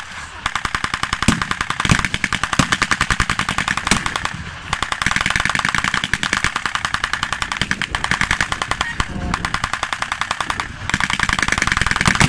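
Machine-gun fire with blank cartridges in a battle reenactment: long rapid bursts that break off briefly about four seconds in and again near the end, with a few louder single shots among them in the first two seconds.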